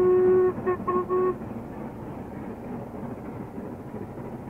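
Steam locomotive whistle: one long single-tone blast that ends about half a second in, followed at once by three short toots in quick succession. A faint steady background rumble remains after the toots.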